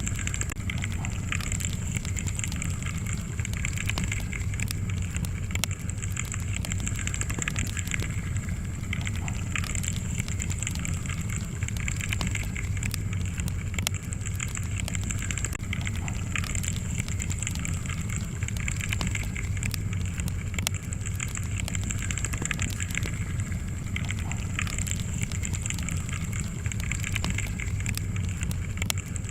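Wood fire crackling: a steady low rumble of burning logs with many small, irregular pops and snaps.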